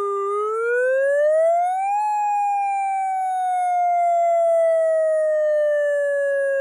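Electronic siren tone through an IP-15 horn speaker, sounding a wail: the pitch climbs steadily for about two seconds, then slowly falls.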